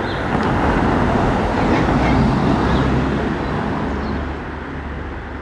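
A vehicle passing by: a rushing noise that builds to its loudest about two seconds in and then fades away.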